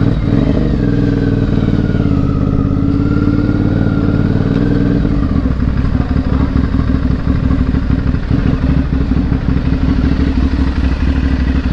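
Aprilia Dorsoduro 750's V-twin engine running steadily at low revs as the motorcycle rolls slowly along.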